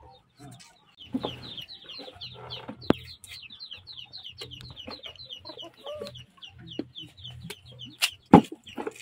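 Poultry calling: a rapid, even run of short high chirps, about five a second, starting about a second in. A few sharp knocks cut through, one near the middle and the loudest near the end, from a knife peeling cassava.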